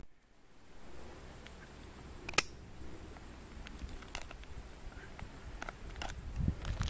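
Hand and knife handling noise: a sharp click about two and a half seconds in, then a few lighter clicks as a knife blade works at a stack of solid fuel tablets, with a low rumble near the end.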